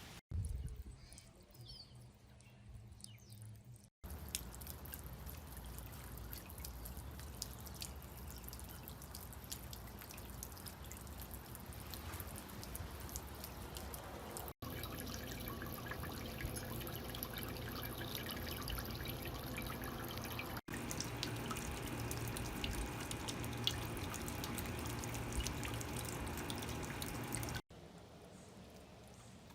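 Small floating solar fountain pump spraying water into a bird bath: a steady patter of splashing and dripping droplets, broken by abrupt cuts several times.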